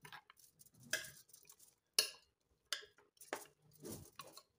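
Metal spoon stirring a thick stew of beef ribs and vegetables in an aluminium pressure cooker pot, scraping and clinking against the pot about once a second.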